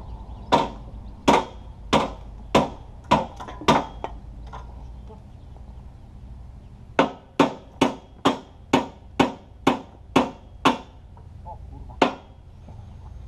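A hand hammer striking steel: a run of six or seven blows, a pause, then about nine quicker blows and one last single blow near the end.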